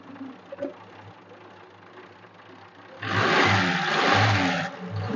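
A 1968 Ford F-75's six-cylinder engine running at a low idle, then revved hard about three seconds in, becoming much louder, with a brief dip just before the end.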